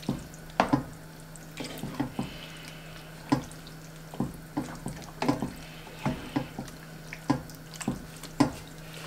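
Wooden spatula stirring a thick tomato sauce with chunks of chicken and vegetables in a white stone-coated sauté pan: wet squelching with irregular sharp clacks of the spatula against the pan, over a steady low hum.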